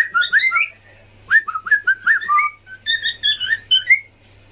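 Pet parrots chirping in three quick bursts of short, upward-sliding whistled notes.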